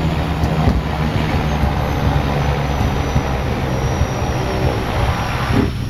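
A vehicle's engine runs steadily with a low drone, heard from inside the cab while moving over rough grass, along with constant rattle and road noise.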